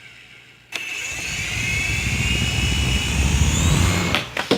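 Small indoor toy helicopter's electric motor and rotor spinning up after a click: a whine that rises slowly in pitch over a low buzz, getting louder. Near the end come a few sharp knocks and the motor cuts out.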